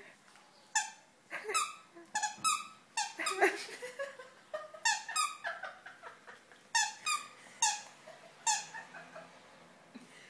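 Squeaker in a plush dog toy squeaking repeatedly as a small dog bites and chews it. About a dozen short squeaks come in clusters, each dipping a little in pitch.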